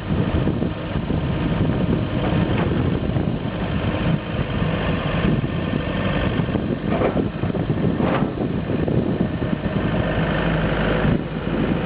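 Scat Trak 1700C skid steer loader's Perkins four-cylinder diesel engine running steadily at idle.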